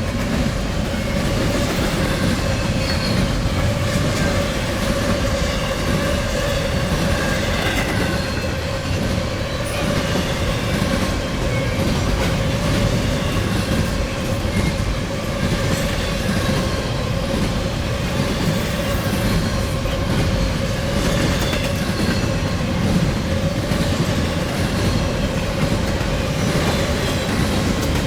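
Freight train cars rolling past at speed, wheels clattering over the rail joints, with a steady ringing tone over the noise.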